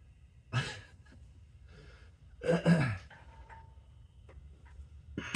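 A person grunting with strain twice, the second one longer with a falling pitch, while forcing a seized nut. Right at the end a sharp crack as the nut breaks loose, loud enough that it was taken for something shattering.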